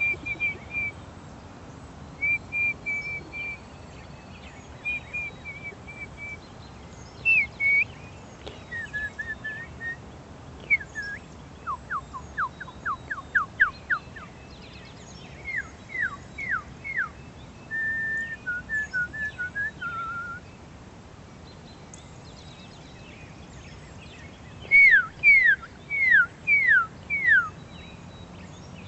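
A person whistling cardinal-style phrases to call birds in. There are short repeated level notes, then downward-slurred notes, a fast run of quick descending notes about twelve seconds in, and four loud slurred downward whistles near the end.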